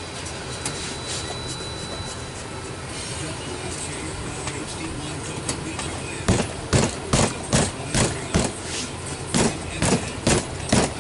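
Open hands smacking a leather seat cover stretched over a truck's rear seat cushion, to work the cover down into place over the foam. A quick run of sharp slaps, about two to three a second, starts about six seconds in, over steady background noise.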